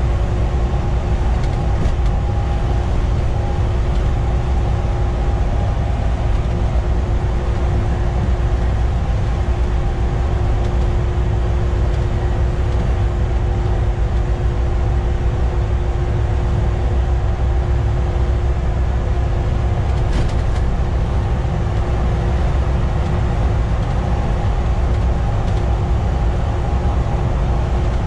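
Volvo B7TL double-decker bus cruising at steady speed, heard from the driver's cab: a loud, steady rumble of its six-cylinder diesel and tyres, with a steady whine running through it.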